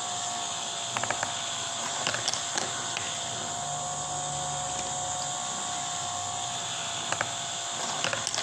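Toy car's wind-up gearbox whirring steadily as it drives the cardboard marble-run wheel, with a few sharp clicks about a second in, a couple more a second later, and again near the end.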